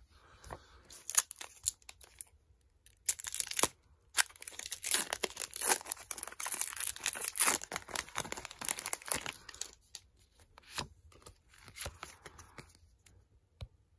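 A foil Pokémon booster pack wrapper being torn open by hand, crinkling and crackling in irregular bursts. It is loudest from about three to ten seconds in, with sparser crackles near the end.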